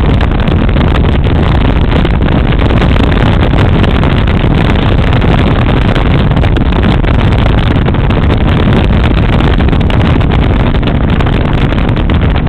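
Motorcycle cruising at steady highway speed: loud, steady wind rush on the microphone over the drone of the engine.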